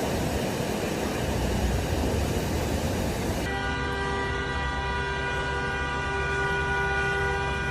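A steady rushing noise, then from about halfway a horn held on one steady chord of several notes.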